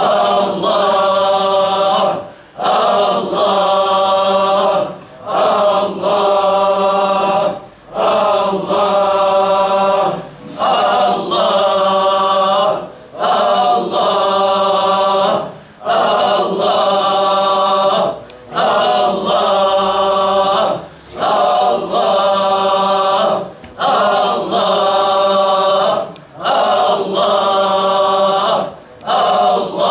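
A group of men chanting the divine name "Allah" together in a Sufi dhikr, each drawn-out phrase lasting about two and a half seconds with a brief pause for breath between, repeating at an even pace.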